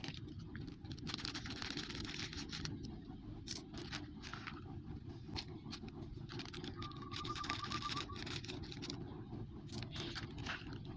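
Plastic snack packets crinkling and rustling as they are handled, in irregular crackly bursts over a steady low rumble.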